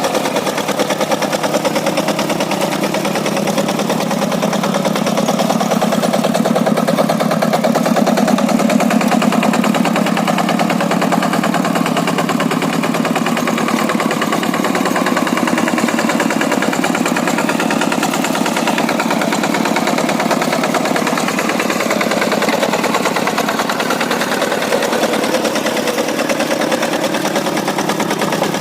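Kubota single-cylinder diesel engine of a Quick G100 two-wheel hand tractor running steadily with fast, even firing pulses, a little louder about a third of the way in.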